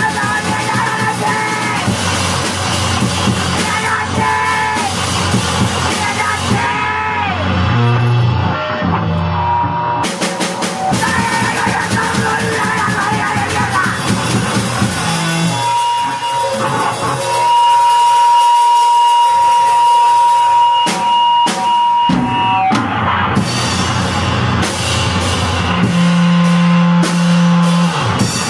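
Powerviolence/noisecore music, a dense loud rock band sound with drum kit and guitar. Midway a steady high tone holds for about five seconds while the low end drops away, then the full band comes back near the end.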